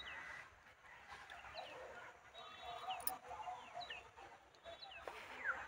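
Birds calling: a short, falling chirp repeated about once a second.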